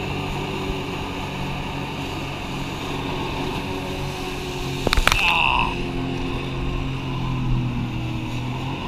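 Personal watercraft engine running steadily as it drives a Flyboard's water jet through its hose, its pitch shifting a little with the throttle. About five seconds in come a few sharp knocks and a brief high squeal.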